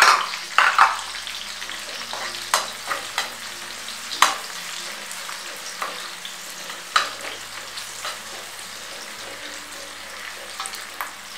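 Sliced onion, garlic and green chillies sizzling in hot oil in an aluminium kadhai on a high gas flame, with a steady hiss. A perforated steel spatula scrapes and clicks against the pan at irregular moments as it stirs, the sharpest knock right at the start.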